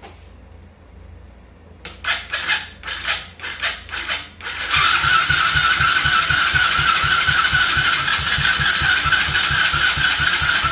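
A 125cc four-stroke single-cylinder ATV engine is cranked for about two and a half seconds, catches about five seconds in and runs steadily with a fast, even throb. It is a cold start on the choke, with a freshly cleaned and refitted carburetor.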